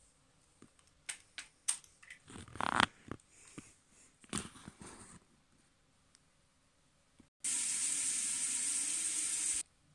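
Plastic dolls and toy parts being handled, with a few clicks and rustles. Then a toy doll shower playset runs with a steady shower hiss for about two seconds, starting and stopping abruptly.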